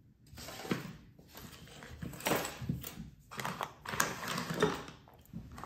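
Small clear plastic parts boxes being picked up and moved about on a rubber bench mat, giving irregular light clicks and scuffs, with a hand sliding across the mat.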